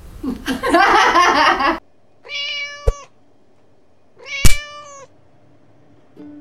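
Domestic cat meowing: two drawn-out, even-pitched meows about two seconds apart, each cut off by a sharp click. They follow a louder, rougher sound in the first second and a half.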